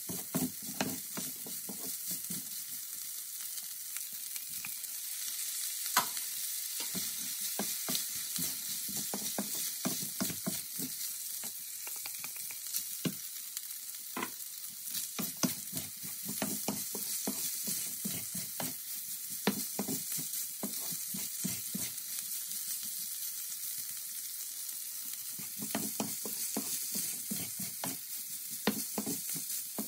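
Fried rice sizzling in a non-stick frying pan as a wooden spatula stirs and tosses it, with a steady hiss and frequent quick taps and scrapes of the spatula against the pan.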